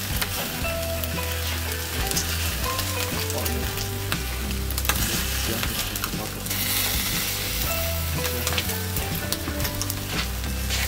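Chicken wings sizzling on a charcoal grill, with many small crackles and pops. The hiss grows stronger for a second or so a little past the middle.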